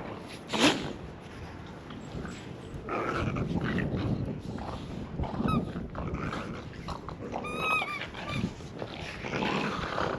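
An animal calling: a sharp cry with a falling pitch about half a second in, then short wavering pitched calls later on, over rustling.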